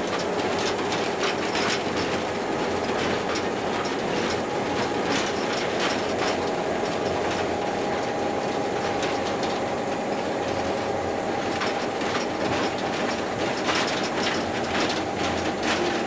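Diesel locomotive heard from inside its cab while under way: a steady engine drone with a constant whine, and irregular clicks and rattles from the wheels and the cab.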